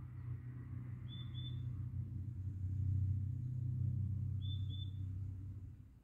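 A bird gives two quick double chirps, about a second in and again about four and a half seconds in, over a low rumble that swells in the middle and fades away near the end.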